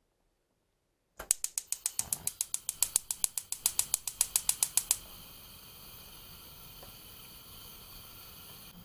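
Gas stove burner being lit: the igniter clicks rapidly, about eight clicks a second, for nearly four seconds until the gas catches, then the lit burner hisses steadily.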